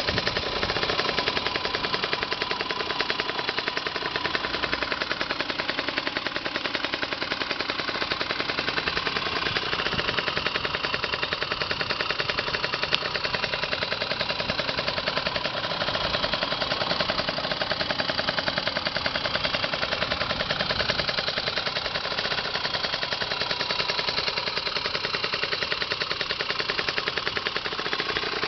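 Bored-up Honda CRM50 two-stroke single running through an expansion chamber and aftermarket silencer, a fast, even train of exhaust pulses. The revs hold fairly steady, with small rises and falls.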